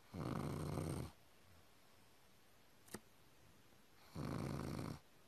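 Pug snoring in its sleep: two snores about four seconds apart, each lasting about a second, with a single sharp click between them.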